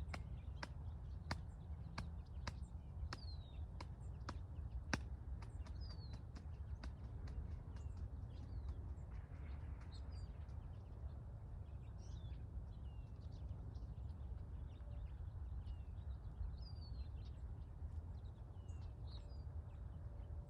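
Small birds chirping, short falling calls scattered throughout, over a steady low rumble. A series of sharp clicks sounds in the first five seconds or so.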